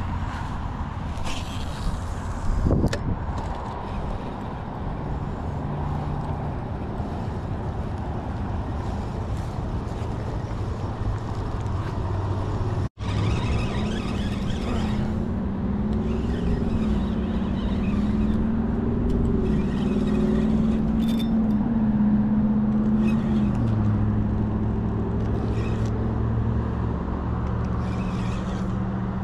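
Steady road traffic noise from cars on a busy road, with a sharp knock about three seconds in. After a sudden break about halfway, a low hum joins the traffic noise, wavering in pitch before it settles.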